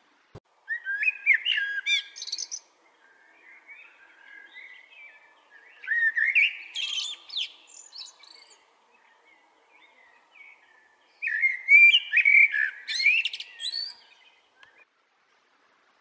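Male common blackbird singing: three loud warbled phrases about five seconds apart, each mixed with higher squeaky twitters, with softer song between the first two.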